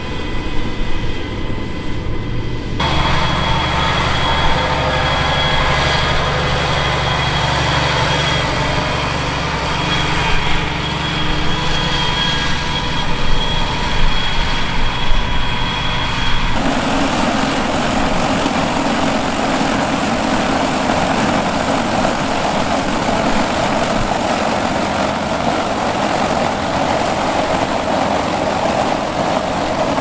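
Heavy self-propelled harvest machinery running in a chicory field: the engines of a root tipper and a harvester, with no voices. The sound changes abruptly about 3 s and 17 s in. Until the second change a steady engine hum carries a thin high whine; after it the running is rougher and noisier.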